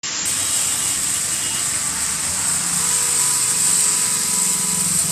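Steady street traffic noise as cars pass on a snowy road, with a strong even hiss throughout and a faint steady hum coming in about halfway through.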